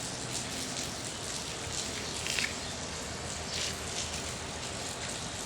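Steady rain falling, an even hiss with a few faint louder drips.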